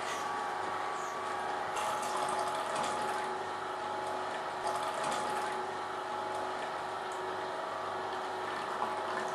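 Juissen vertical slow juicer running steadily, its auger turning and crushing green vegetables and bread with an even mechanical whir, while green juice pours from the spout into a jug.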